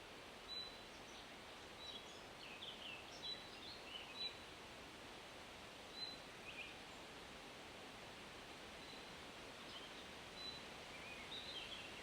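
Faint wind in woodland leaves, a steady soft hiss, with distant birds. One bird repeats a short high chirp many times, and brief snatches of song from other birds come and go.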